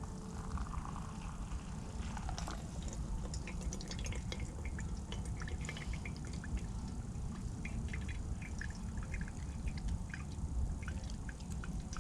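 Freshly boiled water being poured and dripping while coffee is made, heard as many small irregular ticks and drips over a low steady rumble.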